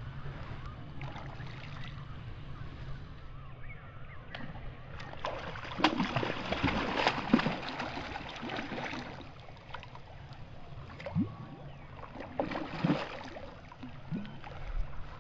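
Water splashing and sloshing in bursts, loudest about six to nine seconds in and again briefly near the end, over a steady low rumble.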